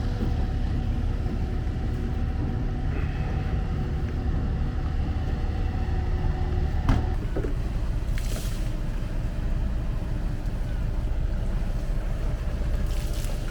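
Fishing boat's engine running steadily, a low drone with a hum. There is a sharp knock about seven seconds in, after which the engine note sits a little lower.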